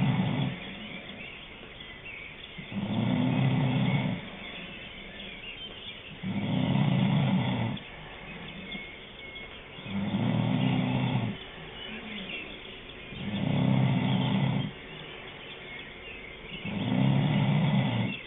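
Snoring: one long snore about every three and a half seconds, each lasting about a second and a half, with much quieter stretches in between.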